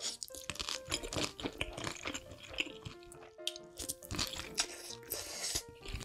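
Close-miked chewing and wet mouth sounds of someone eating mouthfuls of creamy fettuccine alfredo, over soft background music with a steady melody.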